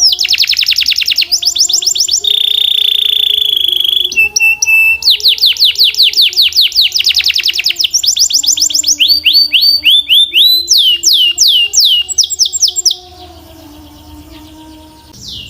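Canary singing: rapid runs of quick falling whistled notes, a steady rolling trill about two seconds in, then more fast note runs. The song breaks off about thirteen seconds in.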